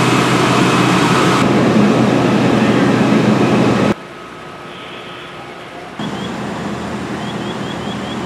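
Fire trucks' diesel engines idling, a steady heavy drone. It drops suddenly to a quieter idle about four seconds in and rises again two seconds later, with a few short faint high chirps near the end.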